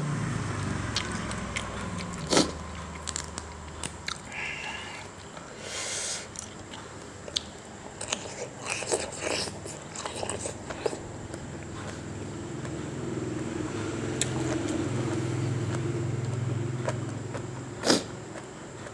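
Close-up eating sounds: chewing and biting a spicy instant-noodle salad, with scattered sharp clicks and crunches. A low steady hum runs underneath and swells in the second half.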